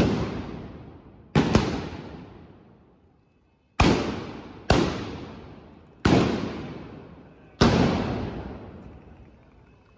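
Trabucs, Catalan blunderbusses loaded with blank black-powder charges, firing seven loud shots at uneven intervals, with two in quick succession about a second and a half in. Each shot is followed by a long echoing decay.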